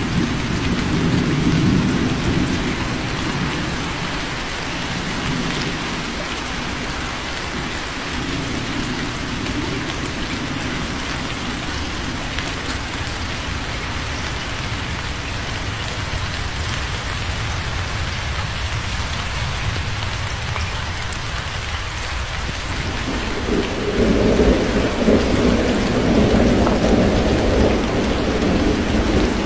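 Steady heavy rain falling, with rolling thunder. A low rumble fades away over the first few seconds, and a louder roll of thunder builds about three-quarters of the way through.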